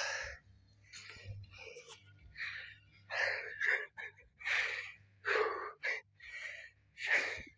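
A man's breathy gasps and exhalations, about a dozen short uneven bursts without words, as he is overcome with emotion.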